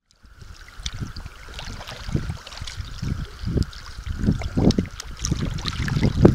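Water swishing and gurgling against the side of a moving canoe, with a hand trailing through it, in irregular splashy swells. Wind rumbles on the microphone. The sound cuts in abruptly after silence.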